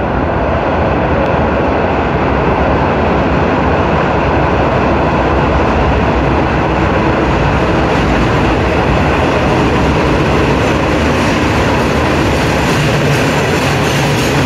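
STM vacuum maintenance (dust-collector) train approaching and running through a metro station: a loud, steady rushing noise that grows brighter near the end as its louvered cars pass close.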